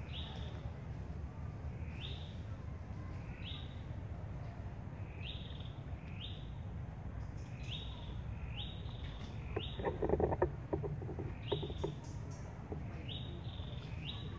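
A bird calling over and over, a short up-slurred note repeated about once a second, over a steady low rumble. About ten seconds in comes a short burst of rustling clicks, the loudest moment.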